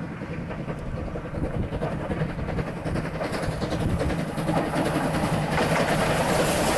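Steam locomotive NM25 approaching with its train, growing steadily louder as it nears.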